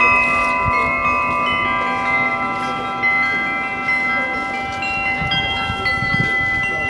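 Bila, flat metal bells, being struck one after another. Their many clear tones overlap and ring on, with a fresh strike every second or two adding new tones over the ones still sounding.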